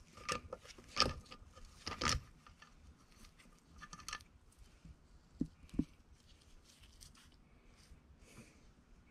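Faint metal clicks and scrapes of pliers gripping and turning a steel exhaust-manifold stud in an aluminium LS cylinder head, the sharpest clicks about one and two seconds in. This is followed by softer handling as the stud is spun out by hand, with a couple of dull knocks near the middle.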